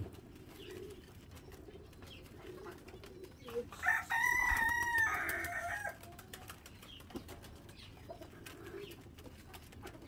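A rooster crows once, a call of about two seconds starting about four seconds in, with pigeons cooing softly in the background.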